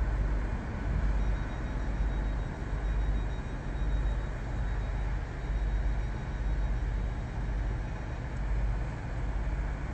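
High Speed Train (Class 43 power car) diesel charter train moving slowly towards the listener, a steady low rumble that rises and falls a little in loudness.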